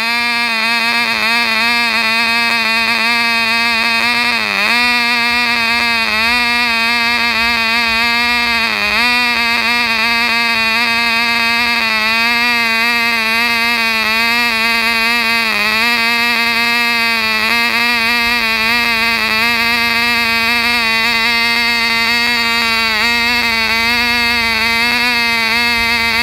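Cox .049 glow engine of a Cox Fokker D-VII model plane running at full speed on a test run, a steady high-pitched buzz. The pitch dips briefly a few times, most clearly about 4.5 and 9 seconds in.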